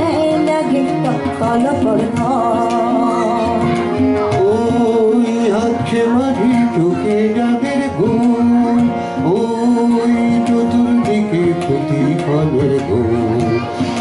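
Bengali song performed live by a man singing over a harmonium's sustained chords, with tabla drums keeping a steady beat.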